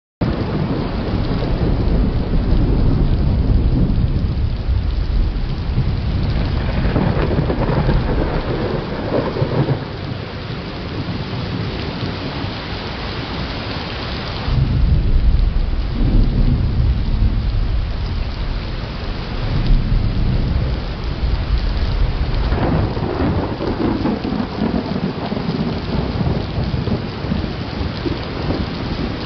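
Thunderstorm: rolling thunder rumbling over steady rain, with a louder peal breaking in suddenly about halfway through.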